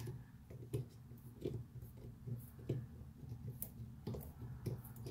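Irregular small metal clicks and scrapes, a few a second, as a multi-tool tip pries up the edge of the aluminum seal cover on a helium hard drive, over a low steady hum.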